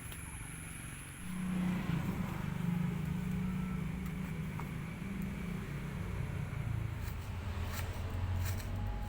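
A motor running with a steady hum, which shifts to a lower pitch about six seconds in.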